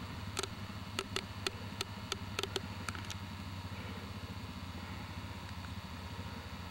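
A vehicle engine idling steadily, with a series of sharp clicks in the first half.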